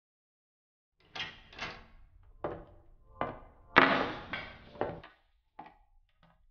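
A run of about seven knocks and clunks at uneven intervals, each with a short ringing tail, the loudest about four seconds in, followed by two fainter clicks near the end.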